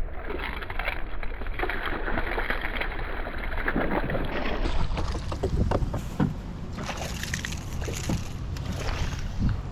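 Water splashing and sloshing around a kayak while a hooked smallmouth bass is fought to the boat: a steady noisy wash broken by many short splashes, with a low rumble of wind and handling under it.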